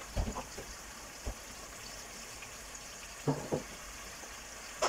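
Kitchen handling at a cooking pot: a few short, soft knocks over a steady faint hiss.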